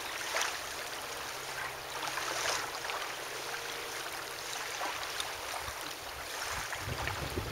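Small waves washing in, a steady rush that swells every couple of seconds, with a low rumble near the end.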